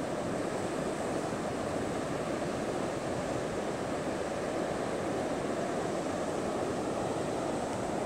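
Heavy pre-storm ocean surf breaking, a steady, even rush of noise without distinct single crashes.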